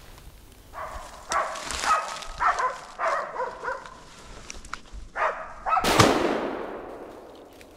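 Hunting laikas barking in short bursts, then a single gunshot about six seconds in, the loudest sound, its report echoing and dying away over a second and a half.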